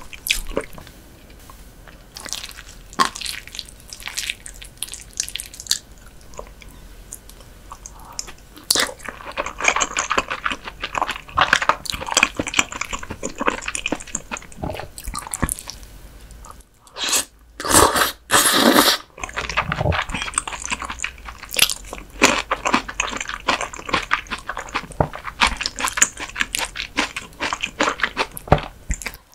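Close-miked eating of raw whitebait (silchi) sashimi in chogochujang: soft, wet chewing and biting with quick crisp mouth clicks, and a louder, denser run of mouth sounds about 17 to 19 seconds in.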